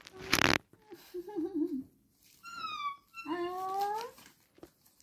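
A baby monkey makes a few short squeaky calls: a wavering one, a high one that falls in pitch, then one that rises. They follow a brief loud rustle just after the start.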